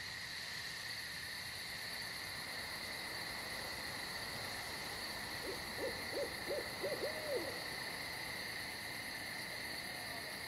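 Night crickets trilling steadily on two high, even tones, with a short run of about six quick hooting notes from an owl near the middle.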